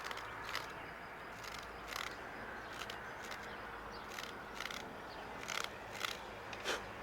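Swiss Army knife blade and reamer scraping and shaving wood in short, irregular strokes, about a dozen over several seconds.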